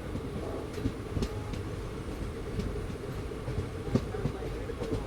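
Indian Railways train running along the track: a steady low rumble with irregular clicks and knocks of the wheels over the rails.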